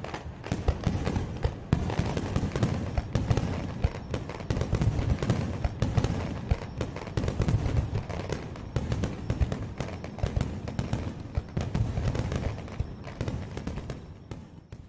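Fireworks bursting: a dense run of sharp crackling bangs over low booms, growing fainter over the last few seconds.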